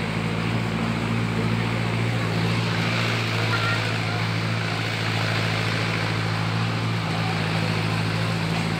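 Tractor engine running steadily while it pulls an open metal trailer over a rough dirt road, heard from the trailer bed: a constant low engine hum under a noisy wash from the ride.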